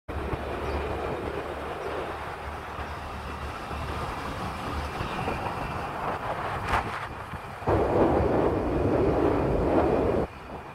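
Vehicle travelling along an asphalt road: steady road and wind noise over a low rumble, which grows louder for a couple of seconds near the end and then drops suddenly.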